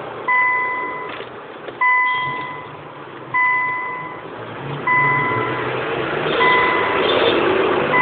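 An electronic beeper sounding a steady single-pitch beep, each nearly a second long, repeating about every one and a half seconds, over steady background noise.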